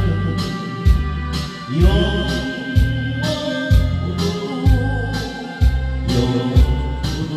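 A singer performing a Korean pop song to a karaoke backing track, with a steady bass beat just under a second apart under sustained accompaniment and the sung melody.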